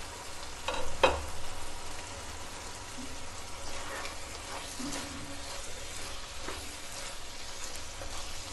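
Dry chicken curry sizzling in a pan on low flame while a plastic spoon stirs and scrapes through it, with a couple of sharp knocks about a second in.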